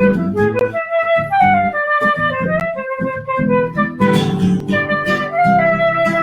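Live instrumental music: a woodwind melody moving in short stepping notes over acoustic guitar accompaniment, with a brief noisy swish about four seconds in.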